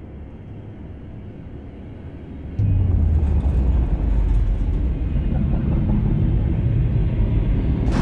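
Deep film sound-effect rumble as Godzilla approaches through smoke. It swells steadily, then jumps sharply louder about two and a half seconds in, and stays heavy and deep.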